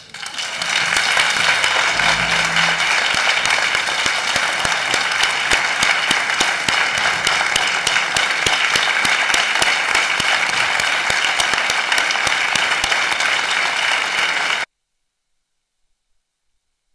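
A large crowd applauding, dense and steady, which cuts off abruptly near the end.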